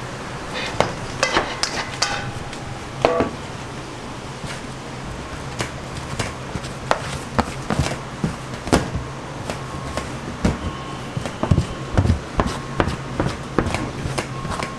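Plastic bench scraper cutting through dough and knocking on a stainless steel worktable: a run of sharp knocks, coming closer together in the second half, with a few short ringing knocks in the first few seconds. A steady low hum runs underneath.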